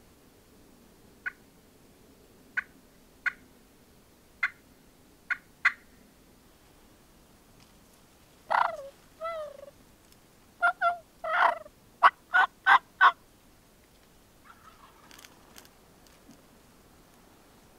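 Turkey calls: single short clucks every second or so through the first six seconds, then a longer call that bends in pitch, and a quick run of about six loud calls near the middle. Fainter calls follow near the end.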